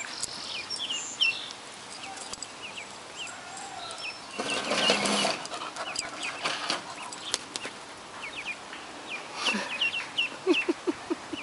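Ducklings peeping: many short, high chirps, over and over. A brief burst of noise about four and a half seconds in is the loudest thing.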